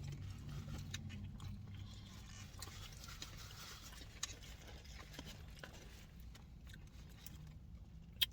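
Faint close-up chewing of soft curly fries topped with cheese and sauce, with small wet mouth clicks and a low hum.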